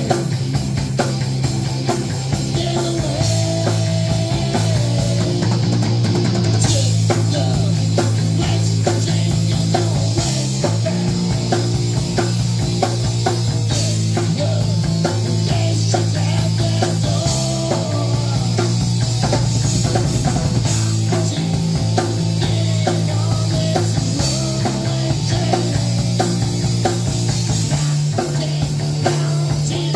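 Rock band playing live: electric guitars over a drum kit, with steady drum hits and sustained low chords that change every few seconds.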